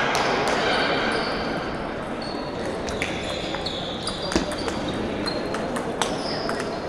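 Table tennis balls clicking off rackets and tables in quick irregular knocks, from this rally and the other tables around it, over a murmur of voices in a large echoing hall.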